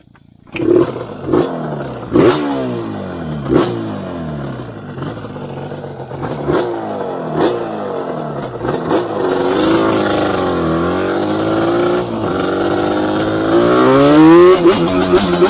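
Yamaha Banshee quad's two-stroke twin engine revving hard as the quad accelerates, its pitch climbing and dropping again and again. Near the end it makes one long climb, the loudest part.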